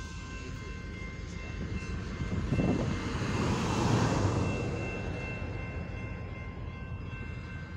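A Jeep Wrangler Rubicon driving past close by on the road. Its tyre and engine noise swells to a peak about four seconds in, then fades away.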